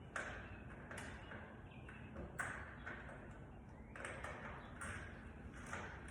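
Door lever lock hardware being handled and fitted: about six light metallic clicks and taps with a short ring, the loudest about two and a half seconds in.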